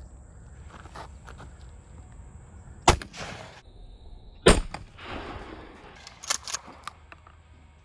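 Two shots from a 12-gauge Mossberg 500 pump shotgun firing turkey and goose loads, about a second and a half apart, each with a trailing echo, followed by a few sharp clicks.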